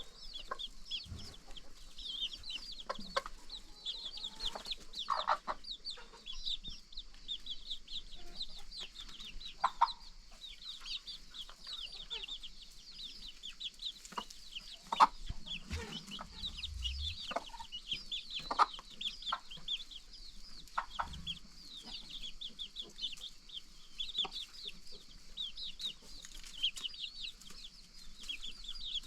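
Chickens clucking now and then, over a continuous bed of many high, quick chirps. The loudest call comes about fifteen seconds in.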